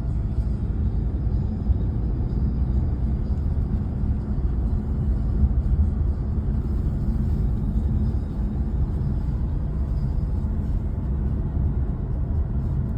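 Steady low rumbling noise with no distinct events, even throughout.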